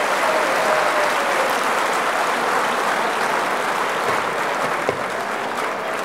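Audience applauding, steady at first and easing off slightly near the end.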